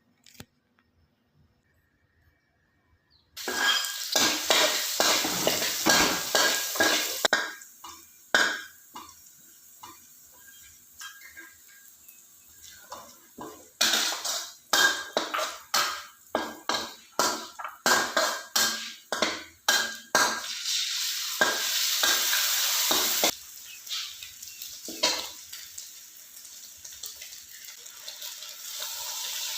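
Fried rice with Chinese sausage sizzling in a pan while a spatula stirs and tosses it, scraping and knocking against the pan in quick repeated strokes. It starts about three seconds in, and the sizzle runs steadier between the bursts of stirring.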